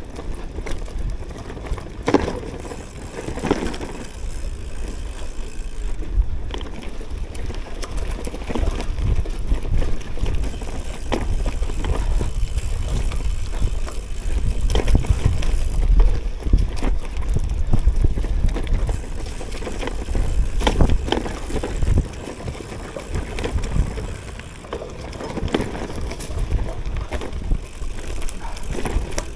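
Cube Cross Race Pro gravel bike ridden over a dirt and leaf-litter forest trail: a steady low rumble of tyres on rough ground, with frequent rattles and knocks as the bike bounces over bumps.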